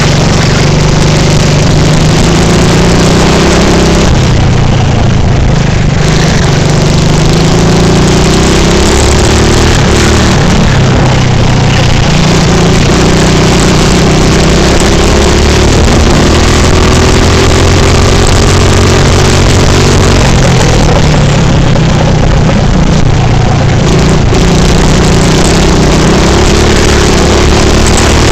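Kart engine running hard over a lap, heard loud and close from on board. Its pitch climbs along each straight and drops back for the corners, several times over.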